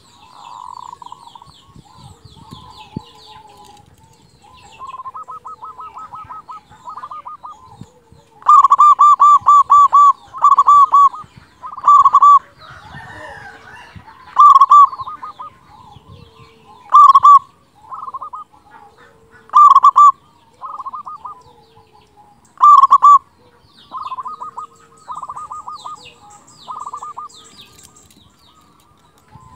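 Zebra dove (perkutut) singing: phrases of rapid, staccato cooing notes, repeated about eight times loudly through the middle, with softer phrases before and after. Faint high twittering sits in the background.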